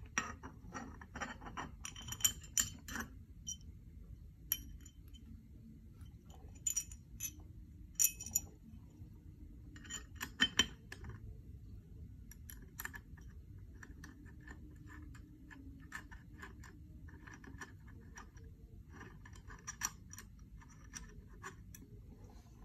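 Small metal clinks and clicks from an Allen key and screw on the metal base of an ASUS ROG Metal Stand as the pole is fitted. Sharp separate clinks come in the first half, then runs of quick, fainter ticks as the key turns the screw.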